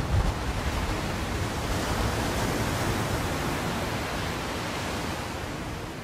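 Sea waves washing onto the beach: a steady hiss of surf that swells a little about two seconds in and then slowly eases off.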